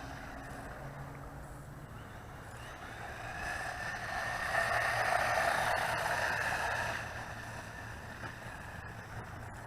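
A 1:16-scale 4WD RC monster truck's electric motor and drivetrain whining at full throttle, growing louder from about three seconds in and fading again after about seven seconds.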